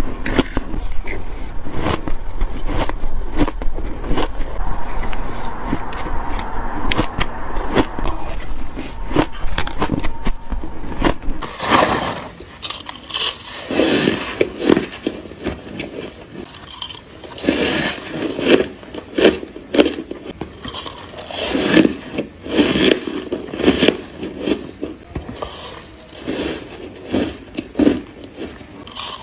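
Bites of freezer frost: squeaky, crunchy ice crackling as chunks are bitten. For the first twelve seconds or so, rapid crackles run over a steady low hum; after that come separate crunching bites every second or two.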